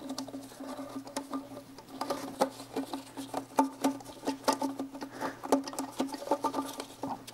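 Irregular small clicks, taps and rustles of a rubber PCV hose and plastic engine parts being handled and worked into place by hand, over a steady low hum.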